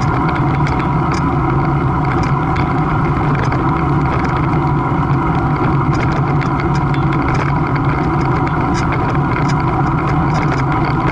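A loud, steady mechanical drone with several held tones, unchanging throughout, with scattered light clicks and rattles over it.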